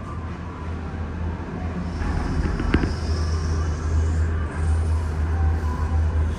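Disney Skyliner gondola cabin running into the station: a steady low drone, a sharp clack a little under three seconds in, and a high whine that swells and fades over a couple of seconds.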